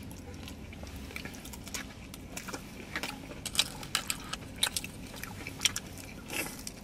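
Close-up eating sounds: two people biting and chewing a steak quesadilla and fish tacos, with scattered short wet clicks and smacks that come thicker about halfway through, over a faint steady hum.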